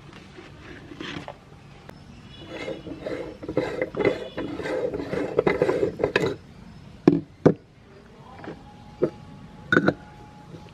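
Meat grinder chewing through a hard item: a dense crunching grind for about four seconds, then several sharp separate cracks and clinks.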